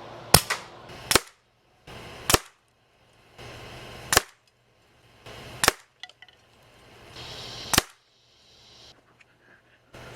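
Umarex Notos PCP air rifle firing .22 pellets: a string of about six sharp, short shots over roughly eight seconds, each cut off abruptly as a separate shot.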